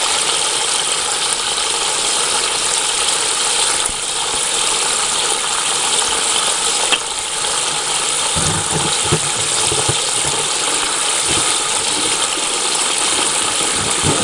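Water gushing steadily up through a home-made PVC-pipe fluid-bed gold trap in a plastic bucket and spilling into a sluice box, a constant churning rush, with a few low bumps in the second half.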